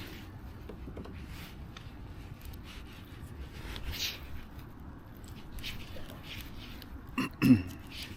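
A person clearing their throat with a short, loud cough-like burst twice in quick succession about seven seconds in, over faint steady background noise.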